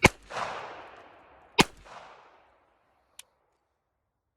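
Two shots from a Taurus TX22 .22 LR pistol, about a second and a half apart, each with a short echo. About three seconds in comes a single light click as the pistol stops firing; the stoppage is a round that loaded but did not eject, which the owner blames on dirty magazines.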